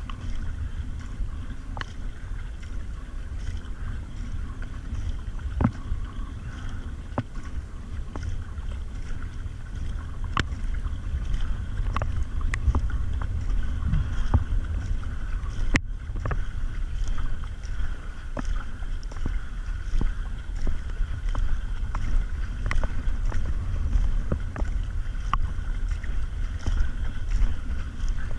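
Surf ski paddle strokes on calm water: the double-bladed paddle dips and splashes softly in a steady rhythm, with occasional small clicks. Wind rumbles on the microphone throughout.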